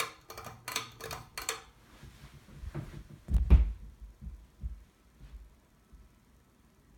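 Ceiling fan switched up to medium speed: a quick run of clicks, then several low thumps and throbs as the loosely mounted fan picks up speed, fading to a faint steady background.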